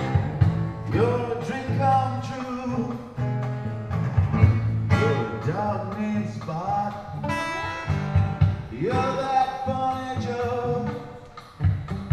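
Music: a song with a singing voice and guitar over a steady bass line.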